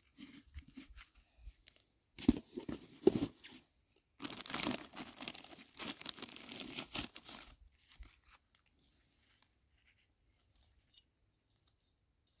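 A plastic zipper bag crinkling and rustling as a gloved hand rummages inside it, in two bursts: a short one about two seconds in, then a longer one lasting about three seconds.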